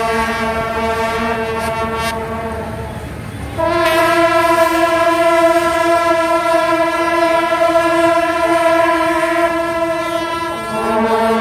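Brass marching band playing long held notes: one note for the first few seconds, a step up to a higher note about three and a half seconds in, then back down to the first near the end.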